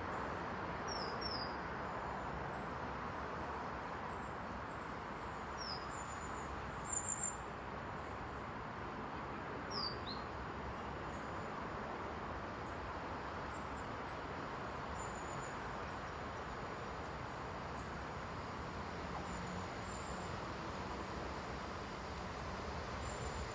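Small birds give short chirps now and then, mostly in the first half, over steady outdoor background noise. An approaching train begins to be heard faintly near the end.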